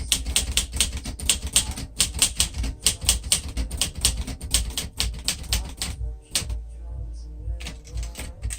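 Keys of an Underwood 315 manual typewriter striking the platen in a fast, even run of about five strokes a second, thinning to scattered strokes after about six seconds.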